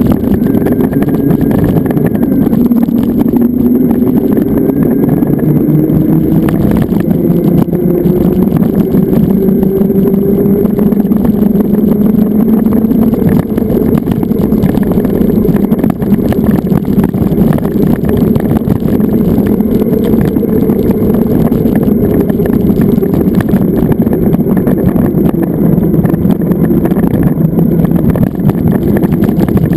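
Zero FX electric motorcycle under way: a loud, steady rumble of wind and road noise. A motor whine rises in pitch during the first third as the bike gathers speed.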